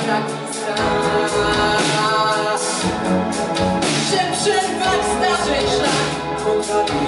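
A song: a singing voice over instrumental backing.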